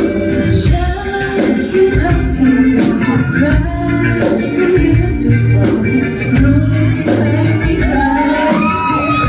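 Pop song performed with a steady drum beat and singing; near the end a voice slides up in pitch and holds.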